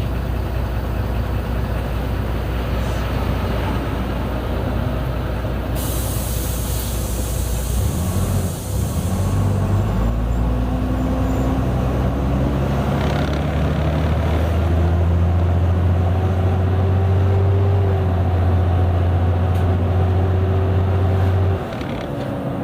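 Diesel engine of a Mercedes-Benz O-500U city bus running, with a loud air hiss lasting about three seconds some six seconds in. After that the engine speeds up and holds a higher, louder steady note, then drops back near the end.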